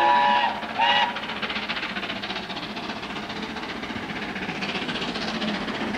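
Whistle of the steam locomotive Oliver Cromwell, a BR Standard Class 7: a long chord-like blast cuts off about half a second in, then a short second toot. After it comes a steady hissing rush from the approaching engine.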